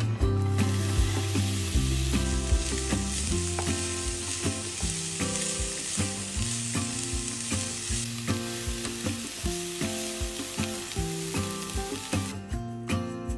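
Diced onions sizzling in hot vegetable oil in a frying pan as they are stirred with a wooden spatula, over background music. The sizzle starts about half a second in and stops shortly before the end.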